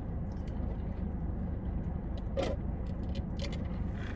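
Steady low hum inside a car, with a few faint clicks and one brief sound about two and a half seconds in.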